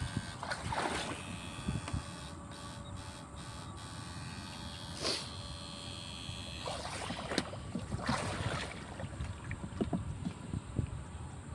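Water splashing and sloshing in several short bursts over a steady low rumble.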